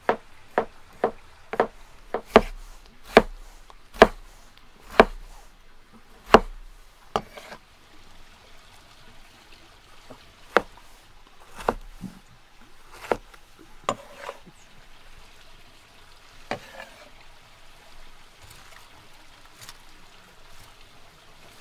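Kitchen knife chopping on a wooden cutting board: a run of sharp knocks that slows over the first seven seconds, then a few scattered ones.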